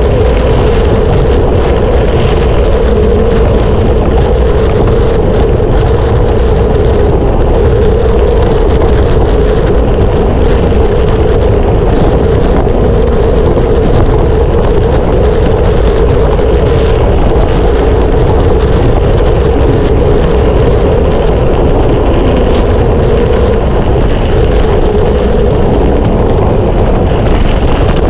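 Steady riding noise from a mountain bike on spiked tyres: wind rushing over the microphone and the tyres rolling, with a constant mid-pitched drone over a low rumble.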